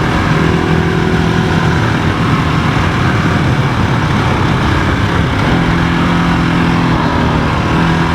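GasGas ES700 dual-sport motorcycle's single-cylinder engine running at steady road speed on gravel, easing off a few seconds in and pulling again after about five and a half seconds.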